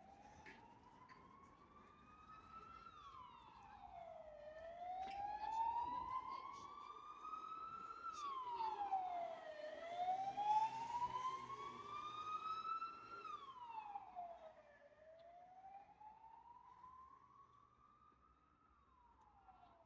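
Emergency vehicle siren wailing: the pitch climbs slowly and drops quickly, about four cycles, growing louder toward the middle and then fading away.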